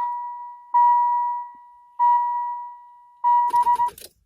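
1993 Chevrolet Camaro Z28's dashboard warning chime, a single steady-pitched chime repeating about every second and a quarter, three times. Near the end a short burst of clicking rattles sounds over the last chime, and the chiming stops.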